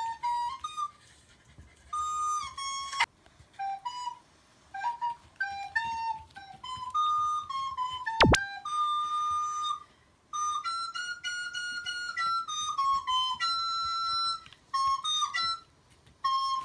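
Recorder notes played back through a smartphone's small speaker: a halting, wavering tune of single notes, some sliding between pitches, broken by short pauses. A sharp knock about eight seconds in.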